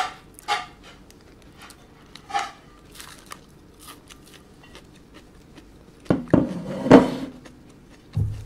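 Scattered crunches of a crisp McDonald's hash brown being bitten and chewed, with a louder burst of crackling about six seconds in.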